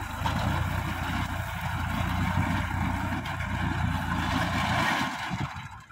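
Tractor engine running steadily as it drives a rear-mounted manure spreader that throws dried cow-dung manure across the field. The sound drops away sharply just before the end.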